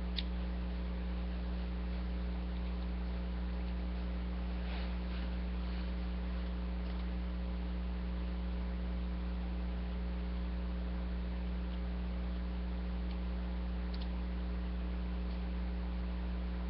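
Steady electrical mains hum with its evenly spaced overtones, and a few faint clicks of plastic toy parts being handled.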